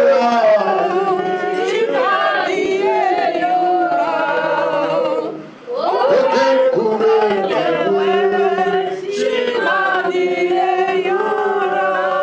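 Slow singing in long held notes, sung into a microphone, in two phrases with a brief break about five and a half seconds in.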